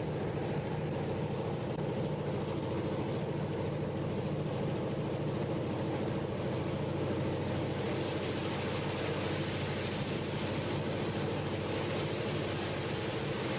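EMD GP-series diesel locomotive working as a helper engine, running hard at full throttle in notch 8 with a steady, even engine note. A hiss grows louder about halfway through.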